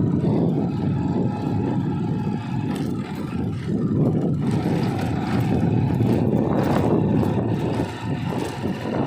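Bajaj Discover motorcycle's single-cylinder engine running while the bike is ridden off-road, a dense rumble that dips briefly about three seconds in and again near the end.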